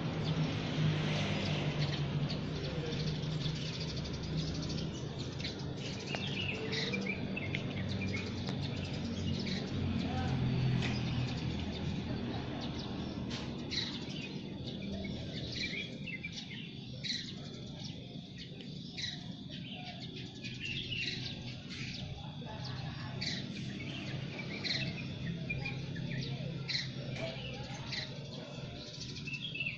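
Several birds chirping with short, repeated high calls, more frequent and distinct in the second half, over a low steady background hum.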